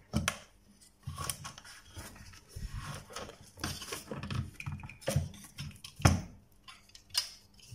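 Irregular clicks, knocks and rustling as hands handle wires and a circuit board inside an inverter welder's metal chassis, with a sharper knock about six seconds in.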